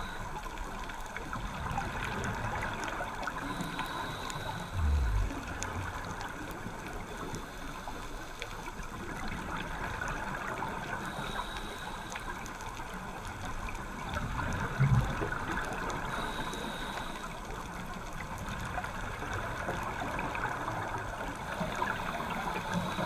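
Underwater sound of a scuba diver's regulator breathing, heard through the camera housing: a faint hiss on each inhale about every five or six seconds and gurgling exhaled bubbles between them. Two short low thumps, about five and fifteen seconds in, are the loudest sounds.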